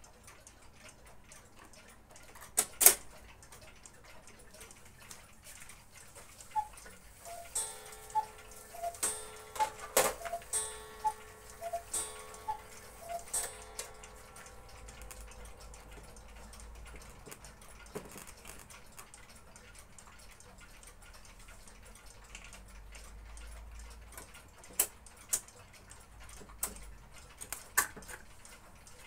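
Faint clicks and small knocks of records being swapped on an RFT Ziphona Rubin 523 record player and its tonearm controls being worked. A run of light ticks, about two a second, comes in the middle. A few louder clicks come near the end as the tonearm lever and controls are handled.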